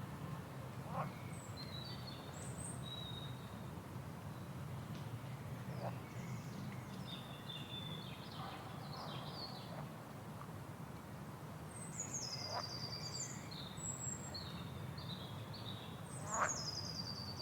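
Steady low rush of a waterfall, with small birds chirping and giving quick falling trills over it, and a few short sharp sounds, the loudest near the end.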